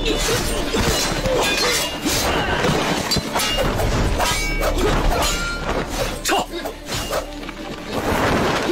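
Fight-scene sound effects: a rapid run of weapon clashes and hits, several ringing briefly, over background music. The hits thin out near the end.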